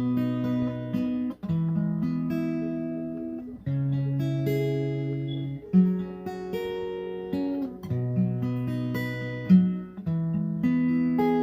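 Background music: acoustic guitar strumming chords, changing every second or so.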